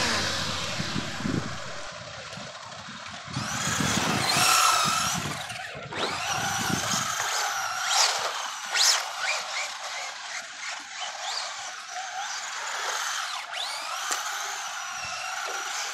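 Electric motors of radio-controlled Traxxas Slash short-course trucks whining, rising and falling in pitch as the throttle is worked, with tyres scrubbing on asphalt as they drift.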